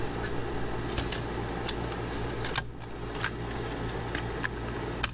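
Product packaging being handled and opened: scattered light clicks and crinkles over a steady low background hum.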